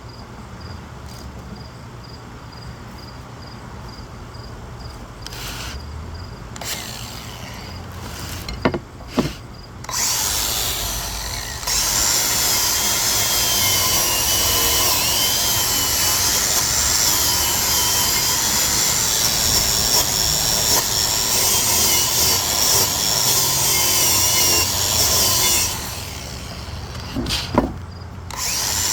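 Wire brush on a power tool scrubbing rust off a cast-iron brake rotor. A few knocks first, then the tool runs for about sixteen seconds with a harsh scraping hiss and a wavering high whine, stops, and starts again near the end.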